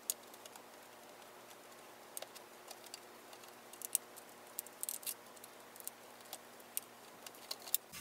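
Scattered light clicks and taps from a small screwdriver and screws on a MacBook's aluminium bottom case as the bottom panel's screws are undone.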